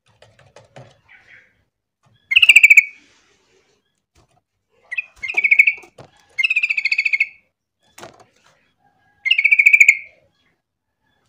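Yellow-vented bulbul calling: four short phrases of rapidly repeated bright notes, spaced a couple of seconds apart.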